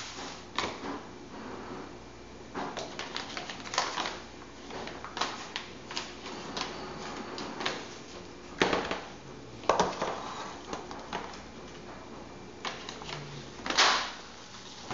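Kitchen knife cutting raw meat on a cutting board: irregular short knocks and clicks of the blade hitting the board, with a few louder knocks past the middle and near the end.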